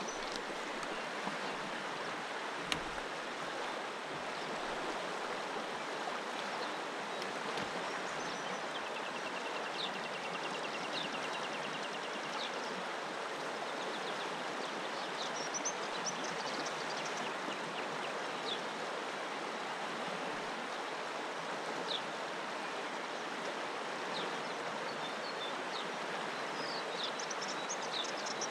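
Steady rush of a fast-flowing river running over a shallow riffle, with scattered short high chirps and a brief trill over it.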